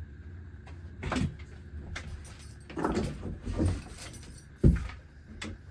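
Knocks and clatter of lumber and tools being handled during workbench framing, with one sharp, loud bang about four and a half seconds in.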